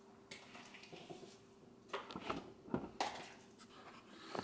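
Mashed bananas being scraped out of a small bowl into a stand mixer's steel bowl: a few faint knocks and scrapes of utensil and bowls, mostly in the second half.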